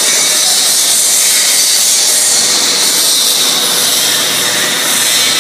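High-speed slitting machine running, unwinding BOPP adhesive tape and rewinding it onto narrow rolls: a steady, loud, high hiss at an even level.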